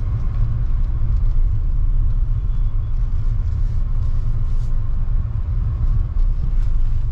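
Steady low rumble of a Suzuki car's engine and tyres heard from inside the cabin while driving along the road.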